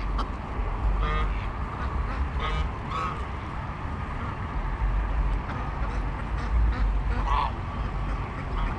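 Domestic geese honking, a few short scattered calls, over a steady low rumble.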